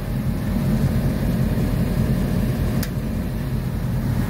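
Diesel-electric locomotive engine idling, heard as a steady low rumble inside the cab, with a single sharp click about three seconds in.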